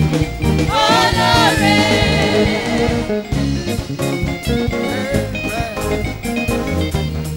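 Live gospel worship music from a band, with sustained bass notes and a steady drum beat, and a voice singing a short wavering phrase about a second in.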